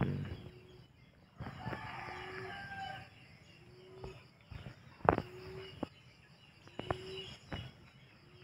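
Rooster crowing once, a call about a second and a half long, with a short low note repeating about every second and a half and a few sharp rustling clicks.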